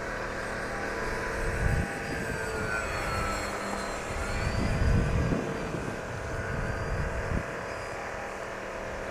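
Domin8 radio-controlled aerobatic model airplane flying overhead, its motor and propeller whine gliding up and down in pitch through the manoeuvres. Low rumbles hit the microphone about a second and a half in and again around five seconds, the loudest moments.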